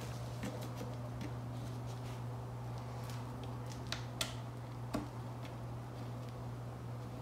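An Allen wrench working the screws of a plastic engine air box: a few light, scattered clicks and ticks of metal on screw heads and plastic, over a steady low hum.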